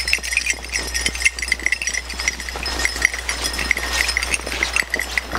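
Footsteps crunching in firm snow, with a quick, continuous metallic jingle from the beagles' collars as the leashed dogs trot.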